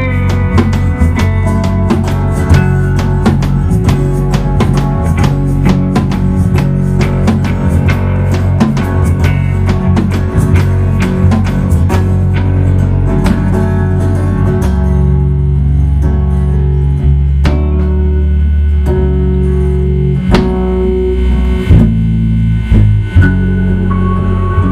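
Live band playing an instrumental passage on electric guitar, bass guitar and drum kit. The drumming is busy at first, then drops away about halfway through to long held bass and guitar notes, with a few drum hits near the end.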